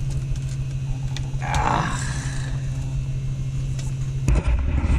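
Hot-air soldering station's blower running as a steady low hum while it heats the headlamp's butyl seal, with a brief scraping hiss about a second and a half in. The hum cuts off near the end, followed by a few clicks.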